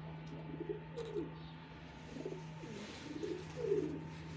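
Pigeons cooing: a run of repeated low, falling coos, several a second, over a steady low hum.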